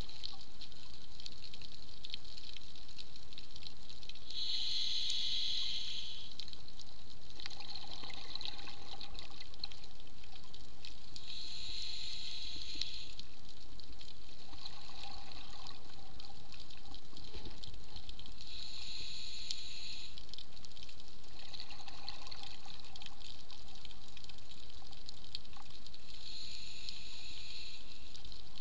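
Scuba diver breathing through a regulator underwater, heard through the camera housing. A bubbling burst of exhaled air comes about every seven seconds, and a softer inhaling hiss falls between each pair of bursts.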